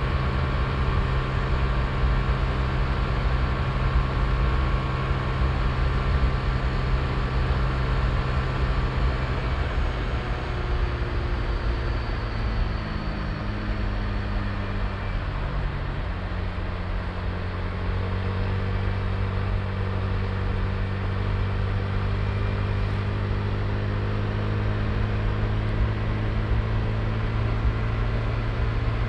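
Honda Click i scooter's single-cylinder engine running under way, over a steady rush of noise. About halfway through its pitch eases down and then settles at a slightly lower, steady note.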